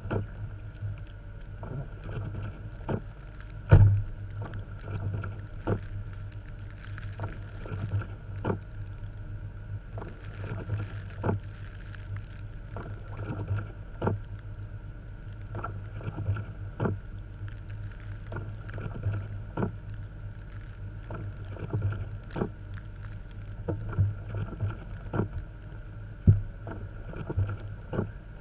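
1989 Jeep Cherokee XJ's engine running with a steady low hum as it drives through deep snow. Frequent irregular knocks and thumps ride on top of it; the loudest comes about four seconds in and another strong one near the end.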